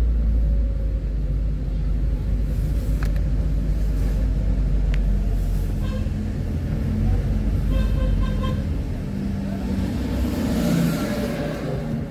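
Steady low engine and road rumble of a car driving slowly through town traffic. A vehicle horn gives a short toot about eight seconds in.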